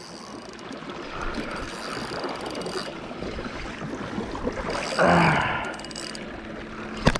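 Fishing reel being cranked during a fight with a hooked fish, a steady mechanical whirring and clicking. There is a loud rushing burst about five seconds in and a sharp click near the end.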